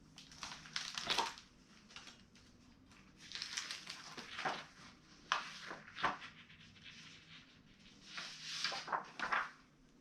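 Paper rustling and crinkling in several short bursts as the pages of a picture book are handled and turned.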